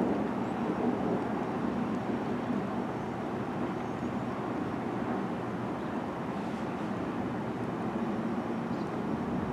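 Low rumble of distant thunder during a thunderstorm, easing over the first few seconds and then holding as a steady low storm noise.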